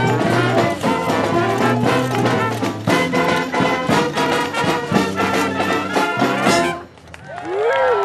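A street brass band with trombones and trumpets plays a swinging tune, which stops suddenly near the end. A single whoop from the crowd rises and falls right after the last note.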